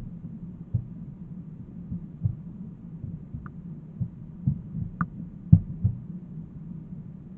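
A steady low hum with irregular dull thumps over it, about eight in all; the loudest comes about five and a half seconds in.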